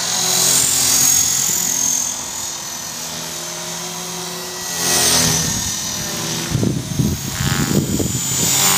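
Electric 450-size RC helicopter (EXI 450) in flight: a steady whine from its motor and rotors, swelling about five seconds in and wavering near the end as it manoeuvres.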